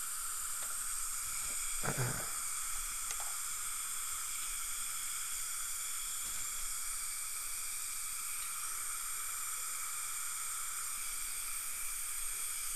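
Steady high hiss with a faint even whine, unchanging throughout, and one short soft thump about two seconds in.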